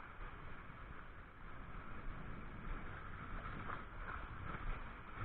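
Steady outdoor background noise with a fluctuating low rumble and no distinct events.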